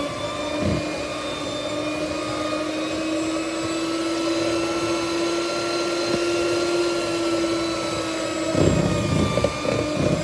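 Electric hand mixer running at a steady whine, its beaters working butter and powdered sugar in a glass bowl. Near the end the sound turns rougher, with low knocks.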